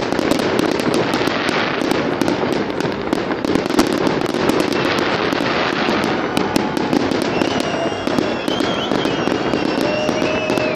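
Fireworks display: a dense, continuous crackle of many small pops from bursting aerial shells and crackling stars, over a steady low rush.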